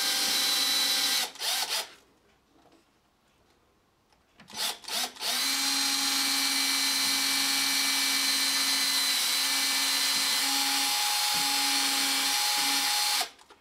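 Cordless drill boring plug holes through plasterboard into soft brick, without hammer action. The drill runs until about a second in and gives a couple of short bursts. After a pause it gives a few quick blips, then runs steadily for about eight seconds and stops shortly before the end.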